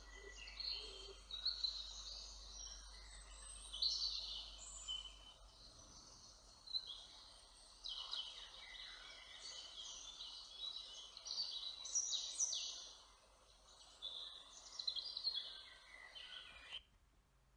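Songbirds singing in a woodland: a steady run of overlapping chirps and trills over faint outdoor background noise, cutting off suddenly near the end.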